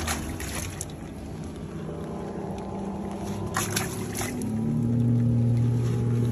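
An engine running steadily, then rising to a higher, louder note about four and a half seconds in, with a few short knocks along the way.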